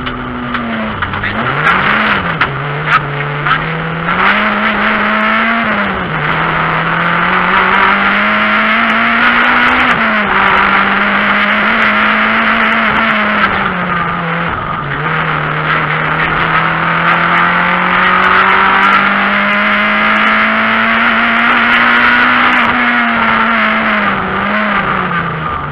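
Renault Clio III RS rally car's 2.0-litre four-cylinder engine heard from inside the cabin, revving hard and falling in pitch at each of several gear changes and lifts. Sharp ticks of stones hitting the car come in the first few seconds.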